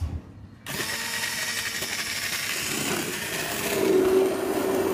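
Immersion (stick) blender starting less than a second in and running steadily as it purées a sauce in a pot, its note growing louder near the end. A short knock comes just before it starts.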